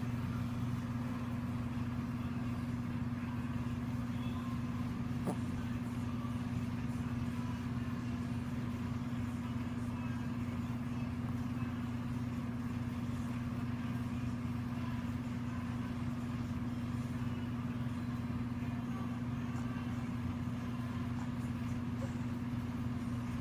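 A steady low hum that holds unchanged throughout, with no breath-by-breath rise and fall.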